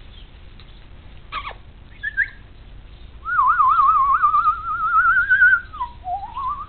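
A person whistling a long warbling note that starts about three seconds in. The pitch wobbles quickly and rises slowly, drops briefly near the end, then glides back up: a whistle calling the puppies.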